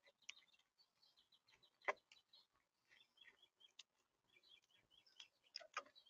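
Monk parakeet feeding at a seed tray: scattered sharp clicks and cracks of its beak working peanuts and seeds against the feeder, the loudest about two seconds in and several near the end. Faint short bird chirps come in runs between the clicks.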